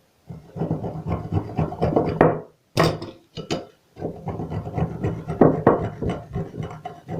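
Cypress cones being grated by hand: rapid rasping scrapes in several runs with short pauses, and a sharp knock about three seconds in.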